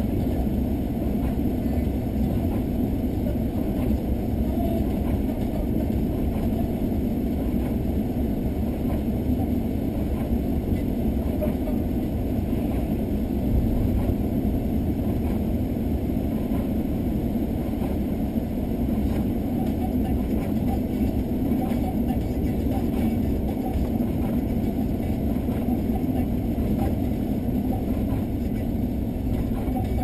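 Car driving on a snow-covered road, heard from inside the cabin: a steady low rumble of road and engine noise with no change in pace.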